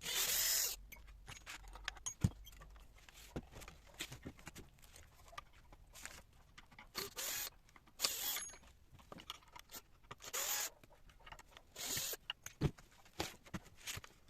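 Hand work taking apart a wooden chair fastened with metal corner brackets and screws: scattered clicks and knocks, with several short raspy scrapes at irregular intervals.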